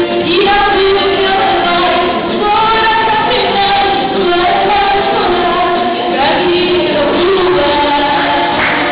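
A woman singing a Portuguese popular song into a handheld microphone.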